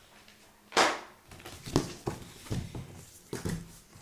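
Computer case box and its packing being handled: a loud rustling scrape about a second in, followed by several light knocks and bumps.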